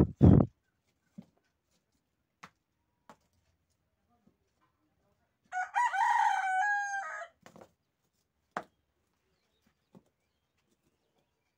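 Two loud knocks of stone on stone at the start as foundation stones are set by hand in a trench, followed by a few faint knocks. Around the middle a rooster crows once, a call of nearly two seconds.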